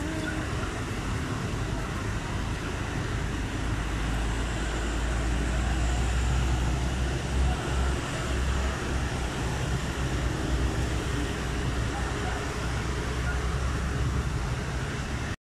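Heavy rain pouring steadily onto a wet road, with the low rumble of vehicles passing on it, strongest in the middle.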